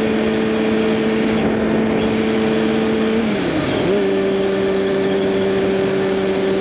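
2009 Kawasaki ZX6R inline-four engine running through a Hotbodies MGP Growler slip-on exhaust while riding at steady revs. A bit over three seconds in, the revs drop briefly, then settle and hold at a slightly lower, steady pitch.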